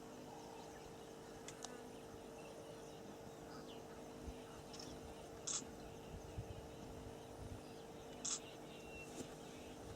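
Quiet bush ambience with a steady low hum, a few faint bird chirps, and two short sharp clicks about three seconds apart.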